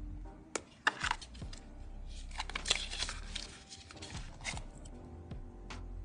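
Handling noise of a smartphone unboxing: sharp clicks and taps as the phone and inserts come out of a cardboard box, then a burst of paper rustling from the documentation packet, then a few more light clicks, over a faint low hum.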